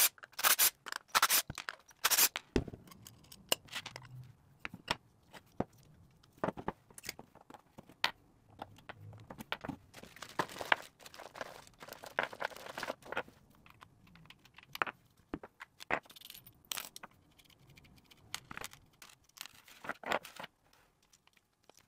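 Small hardware of an aluminium guitar-pedal enclosure being taken apart by hand: screws, knobs, jack nuts and washers clicking, scraping and jangling against the metal case and the work surface. The sounds come as many short, separate clicks and rustles.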